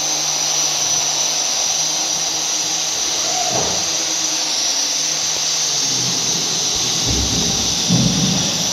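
A steady, high-pitched hiss of a running machine, with a few low knocks near the end.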